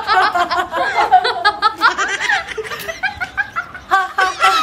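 Women laughing loudly and without a break in a forced, theatrical 'ha ha ha' villain's laugh, in quick repeated syllables that barely pause.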